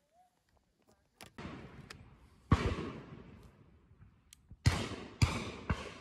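A string of about six shotgun shots, each trailing off in a long echo. Two fainter ones come just over a second in, a loud one about two and a half seconds in, and three more in quick succession near the end.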